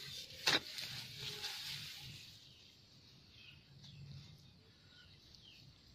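A metal spade blade strikes sharply into hard soil about half a second in, followed by a couple of seconds of scraping and crumbling earth as the dirt is worked.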